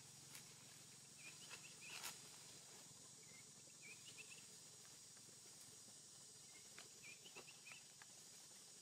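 Faint outdoor ambience: a steady high insect drone with scattered short, high chirps and a few soft clicks.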